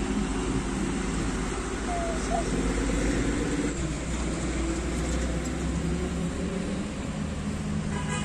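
Steady highway traffic: a continuous low rumble of truck and car engines running past. A vehicle horn sounds briefly right at the end.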